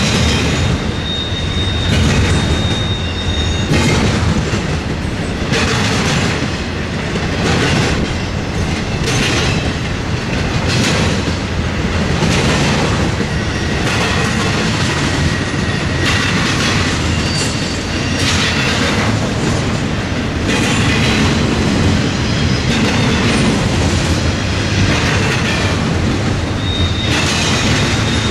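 Freight train cars rolling past, wheels clacking rhythmically every second or two. A thin, high wheel squeal sounds about a second in and again near the end.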